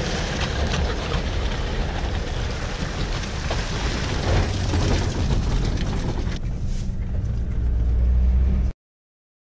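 A four-wheel-drive's engine pulling a boat trailer up a concrete ramp out of the water, with water splashing and streaming off the trailer wheels. The engine grows louder toward the end, then the sound cuts off suddenly.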